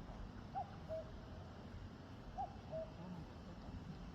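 A bird's two-note hooting call, a short higher note then a slightly lower one, heard twice about two seconds apart and faint.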